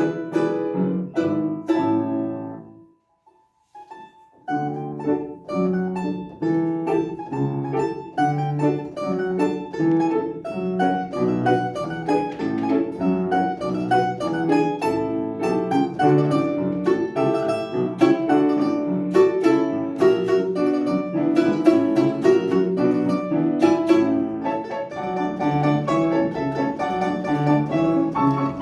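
Live instrumental music: a lively piece of fast, crisply struck notes. It breaks off for about two seconds near three seconds in, then resumes.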